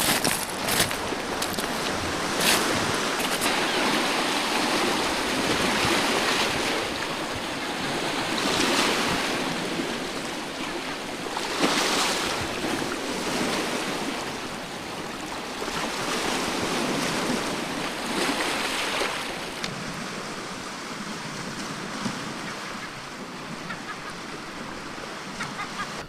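Sea surf washing onto the shore, with wind. The rush swells and fades every few seconds as waves come in.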